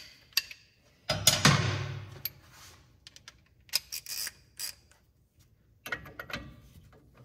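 Metal hand tools handled with a loud clatter and clicks, then a half-inch ratchet clicking on a 24 mm socket near the end as it spins off a tie rod end's castle nut that has already been broken loose.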